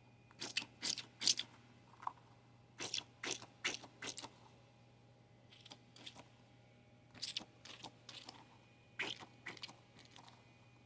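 Crinkling and crunching in short, irregular clusters of bursts with quiet gaps, from a purple squishy frog fidget toy and its plastic packaging being opened and handled.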